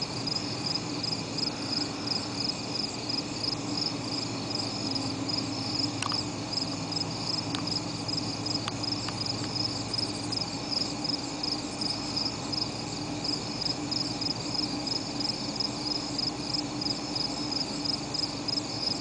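Night-time insect chorus: a high-pitched, evenly pulsing chirring that goes on without a break, with a steady low hum underneath.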